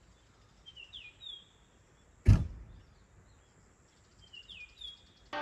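Quiet outdoor ambience with a bird giving short falling whistled calls, a few notes about a second in and again near the end. A single loud thump about two and a half seconds in, the loudest sound here.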